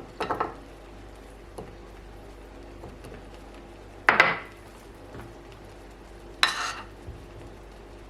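Dishes and kitchen items clinking and knocking as they are handled and set down: a quick rattle of clinks at the start, a loud sharp clack about four seconds in, and another clatter about six and a half seconds in.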